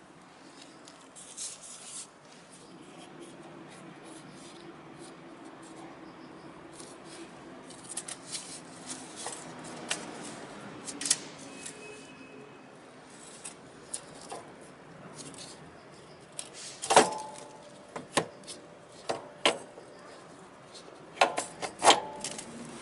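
Hand tools and metal brake parts being handled: irregular clicks, taps and light scraping, then louder metal clanks that ring briefly, the loudest a little past the middle and a quick cluster near the end.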